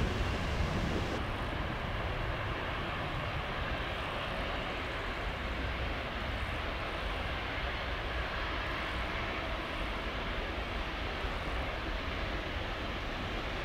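Boeing 777 freighter's twin GE90 turbofan engines at taxi power, a steady jet engine noise with a strong low end that holds level as the aircraft rolls past.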